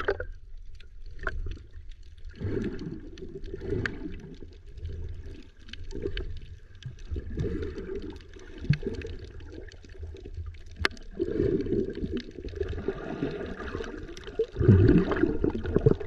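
Water heard underwater through a GoPro's waterproof housing as a snorkeler dives: muffled sloshing and rumbling that rises and falls, with scattered faint clicks and a louder surge of water near the end.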